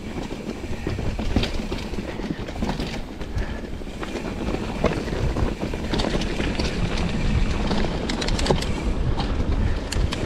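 Mountain bike riding over a rough trail: a low rumble of wind on the microphone under a continuous rattle and clicking from the bike, with a dense run of sharp clicks about eight to nine seconds in.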